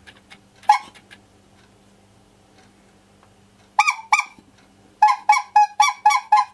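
A squeeze-bulb horn for a BSA Bantam D3 motorcycle, a rubber bulb on a metal reed horn, is squeezed by hand and honks: once, then twice in quick succession, then a rapid run of about six honks near the end. It is being tested after a makeshift repair, and it works.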